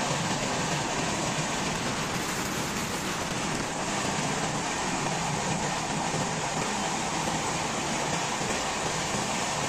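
Steady, even rushing noise of an express train running, heard from inside the coach, with no distinct wheel clicks.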